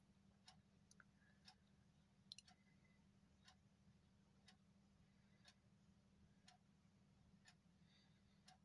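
Near silence: faint ticking, about once a second, as from a clock, over a low steady hum, with one sharper click about two seconds in.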